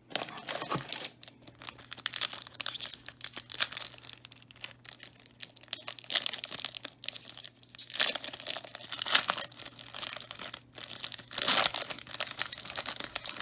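A trading card booster pack wrapper being crinkled and torn open by hand, an uneven crackling with several louder rips in the second half.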